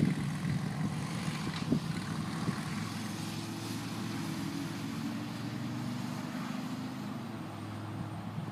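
Motor vehicle engine running steadily with a low hum.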